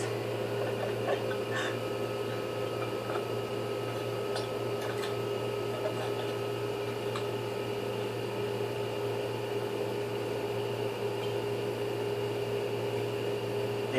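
Steady mechanical hum of a running motor, a low drone under a higher, even whine, with a few faint clicks.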